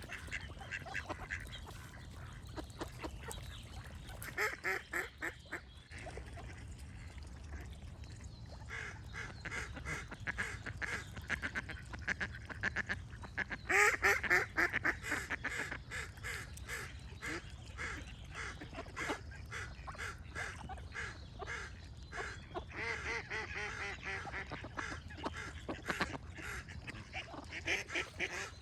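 Ducks quacking in rapid runs of calls, in several bouts, the loudest about halfway through. A steady low rumble runs underneath.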